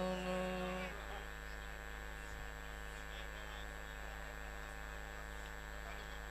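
A man's chanted note is held steady and ends about a second in. After it, only a steady electrical mains hum remains.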